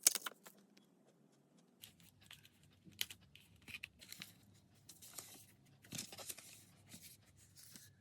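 Packaging being torn and crinkled by hand: a sharp crackle at the start, then irregular rustling, tearing and small clicks.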